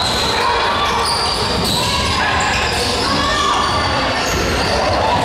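Basketball game sounds in a gym: a ball bouncing on the court amid voices of players and spectators, echoing in the large hall.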